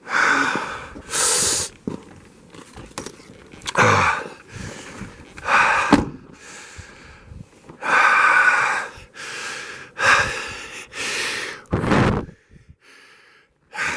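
A man breathing hard in pain, a series of loud gasping breaths about every second or two, some with a low groan in them.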